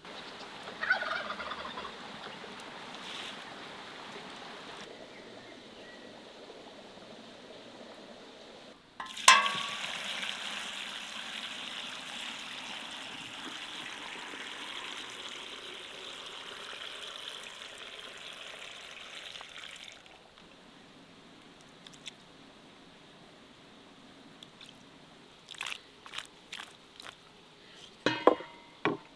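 Domestic geese honking a few times near the start. Then brine is poured from an enamel pot over garlic scapes in a wooden barrel: a steady splashing pour of about ten seconds that starts suddenly and stops abruptly, followed by a few small knocks near the end.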